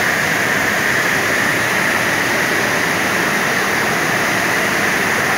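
Steady rush of fast, muddy floodwater tumbling through a rocky river below a waterfall.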